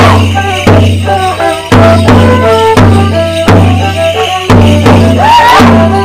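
Live English folk dance tune for Border Morris: a fiddle melody over a strong, steady low beat.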